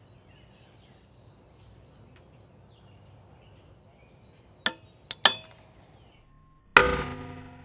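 3D-printed PETG-CF joint cracking under twisting load: three sharp cracks a little past halfway, then a louder snap near the end as the joint breaks, followed by a short ringing decay.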